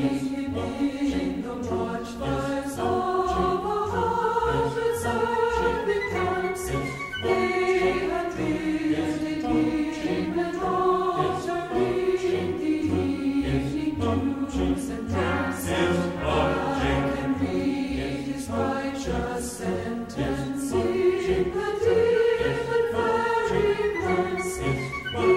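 Background music: a choir singing long, held notes.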